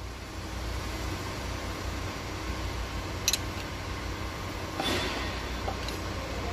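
Hand tools working on the rocker arms of a Deutz TD 2011 diesel cylinder head during valve clearance adjustment, with the engine not running: one sharp metallic click about three seconds in and a short scrape near five seconds, over a steady low workshop hum.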